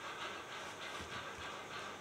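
Sewing machine running, a fast, even mechanical clatter with a steady whirring hiss.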